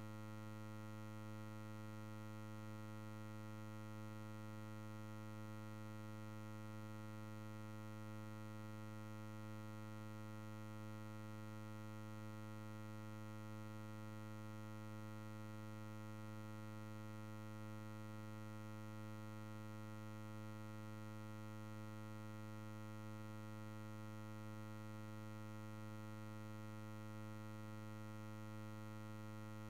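A steady, unchanging low electrical hum with a buzzy string of overtones, holding the same pitch and level throughout.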